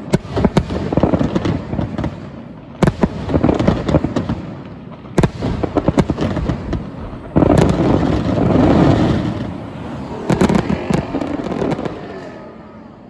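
Aerial fireworks display: many shells bursting in quick succession with sharp bangs and crackle between them. A big burst comes about seven and a half seconds in, and the sound dies away near the end.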